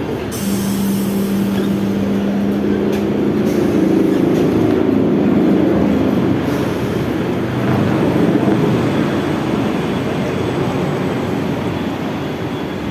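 Electric multiple unit suburban train running along the track: a steady rumble, with a low steady hum for the first three seconds or so.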